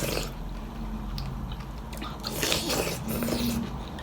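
Close-miked eating: a person biting and chewing a mouthful of thenthuk noodle soup, in irregular wet bursts.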